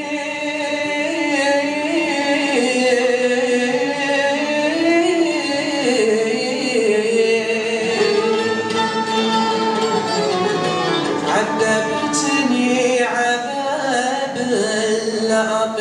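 Andalusian (andalou) ensemble music: men singing together over violins bowed upright on the knee, an oud and a mandolin, with a continuous, gliding melody.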